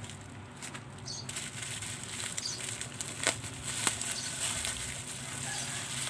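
Bubble wrap rustling and crinkling as it is handled and unwrapped, with two sharper clicks a few seconds in.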